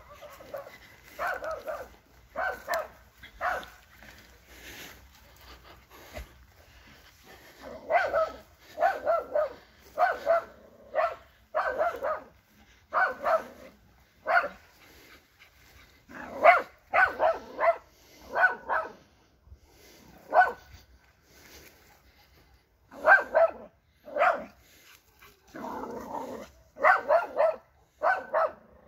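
Young Jagdterrier barking in runs of short barks with pauses of a few seconds between them, the dog baying during wild boar training.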